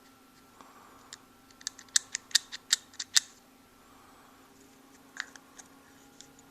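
Sharp clicks of small hard parts being handled, a quick run of about ten in the first half and a few single ones later, as a steel primary gear is fitted into an RC truck's transmission case.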